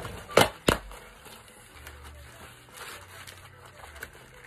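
Taped cardboard shipping box being pulled open: two sharp cracks within the first second as the flaps give way, then quieter rustling of cardboard and plastic wrapping.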